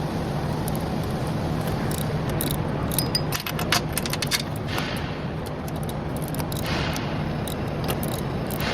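Wrench working the locked double nuts on a stud, giving a run of sharp metal clicks and clinks for a couple of seconds, then a couple of brief scrapes, over a steady low hum.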